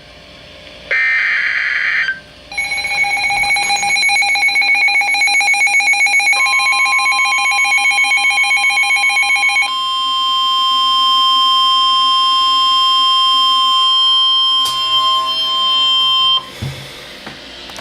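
Weather radio emergency alert: a short burst of data noise, then pulsing electronic alarm beeps for about seven seconds, joined about six seconds in by a steady, high-pitched warning alarm tone that runs about ten seconds and cuts off suddenly near the end. It signals a severe thunderstorm warning before the voice message.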